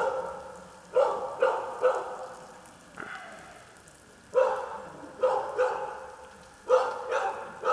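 Dog barking in short runs of two or three barks about half a second apart, each bark trailing off after its sharp start.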